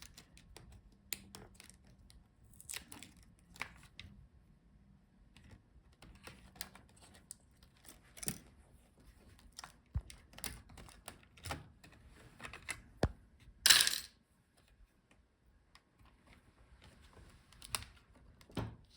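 Scattered small clicks and taps of a laptop's ribbon-cable connectors being unlatched and unplugged from the motherboard, with one louder brief rustling scrape about two-thirds of the way through.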